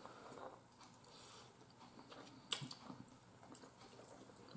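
Quiet chewing and wet mouth sounds of someone eating noodles and chicken wings, with a single sharp click about two and a half seconds in.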